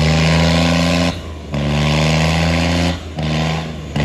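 Tractor engine running hard at high revs during a tractor tug-of-war pull. Its steady, loud note drops out briefly three times.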